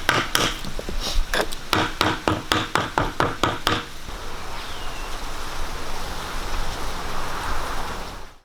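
A quick run of sharp taps and knocks from hand work, quickening to about five a second, then a steady scraping hiss that cuts off abruptly near the end.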